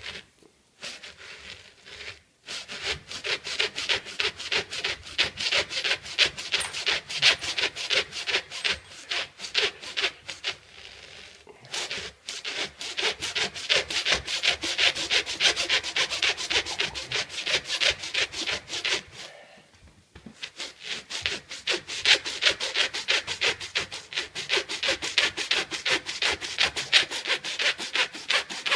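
A blade sawed quickly back and forth through a baseball's wound yarn and leather cover, a steady run of rasping strokes that pauses briefly twice, about a third and two thirds of the way through.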